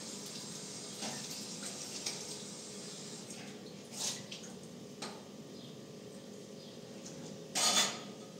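Tap water running into a stainless-steel kitchen sink while dishes are washed by hand, with a few light knocks of plates and trays and a louder clatter near the end.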